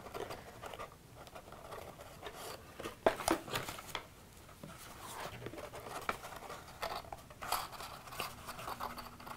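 Cardstock rustling and creasing as cut paper pieces are handled, bent and pressed together on a tabletop, with a sharp tap about three seconds in.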